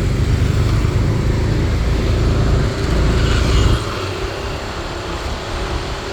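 Road traffic noise dominated by a heavy low vehicle rumble that eases off about four seconds in, leaving lighter steady traffic noise.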